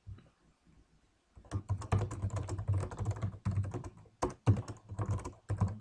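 Typing on a computer keyboard: a quick, uneven run of key clicks that starts about a second and a half in.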